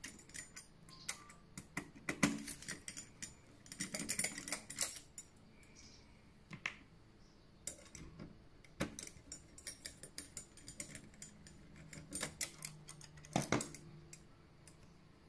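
Irregular light clicks and taps of a screwdriver and small screws as the fasteners holding a PlayStation 4 Pro's motherboard are undone.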